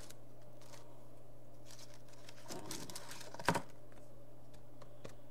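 Light taps and clicks of craft supplies being handled on a tabletop scattered with painted index cards, with one sharper knock about three and a half seconds in, over a steady low hum.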